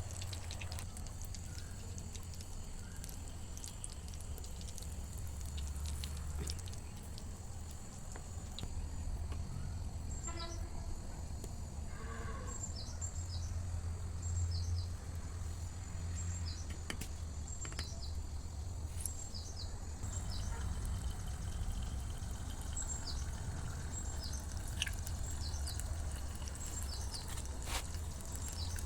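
Outdoor background: short high chirps repeating here and there over a low steady rumble, with a faint steady high whine.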